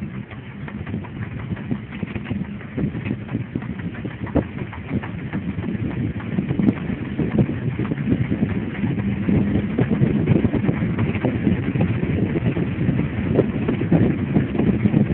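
Wind buffeting the microphone and rattling of a bicycle ridden fast along a paved road, a rumble with many small clicks that grows louder as the speed builds.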